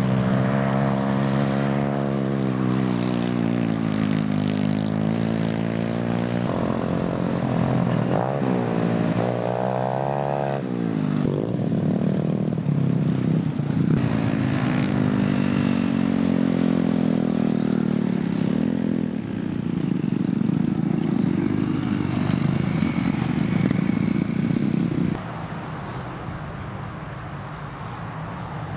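Several small racing kart engines running at speed, their pitch rising and falling as the karts accelerate, brake and pass. About 25 seconds in the level drops suddenly to a quieter, more distant engine noise.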